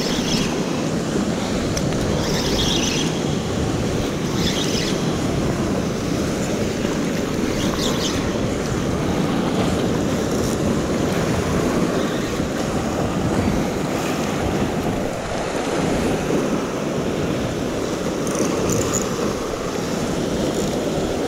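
Steady rushing of wind on the microphone and sea surf washing against the rocks, with a few short high hisses.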